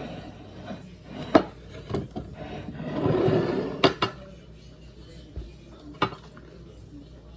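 Cutlery and dishes clinking at a meal: a few sharp clinks and knocks, two in quick succession about four seconds in, with a louder stretch of noise just before them.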